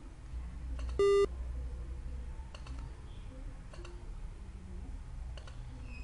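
A single short, loud computer alert beep about a second in: one steady electronic tone lasting about a quarter second. A few faint mouse clicks follow.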